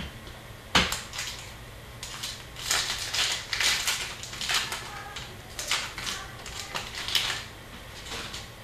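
Upper Deck hockey trading cards and their packaging being handled: irregular crinkling and rustling, with a sharp click just under a second in.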